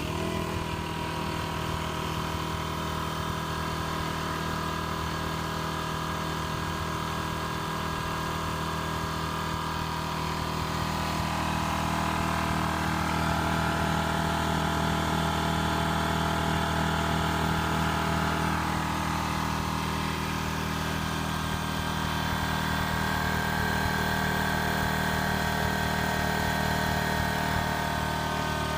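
Makita AC4000 portable air compressor starting up and running steadily, getting a little louder partway through.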